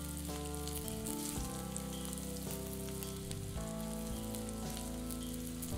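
Flour-dusted pork cubes frying in canola oil in a cast-iron chicken fryer: a steady sizzle with fine crackling, under soft background music.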